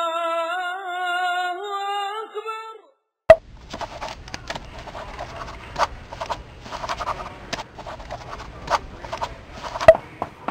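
A single held, voice-like hummed note that wavers and rises a little before stopping about three seconds in. Then a sharp click, followed by irregular scratching and tapping of a pen writing on paper.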